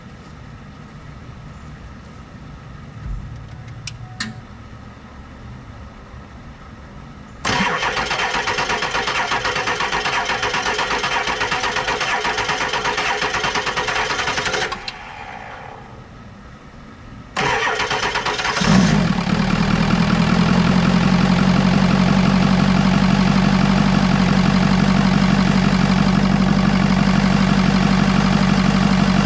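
Ford F-350's diesel engine cranked by the starter for about seven seconds without firing. After a short pause it is cranked again, catches about a second and a half later and settles into a steady idle. This is a start after an engine and transmission swap, made with the ICP sensor unplugged so that it will fire.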